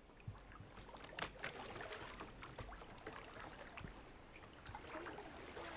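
Water lapping and splashing around a kayak as it is paddled on a river, with many small sharp drips and splashes from the paddle blades. A thin steady high tone runs underneath.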